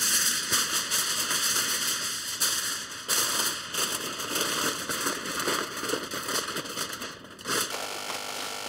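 Aluminum foil crinkling and crackling as it is spread over a foil pan and pressed and folded down around the edges by hand.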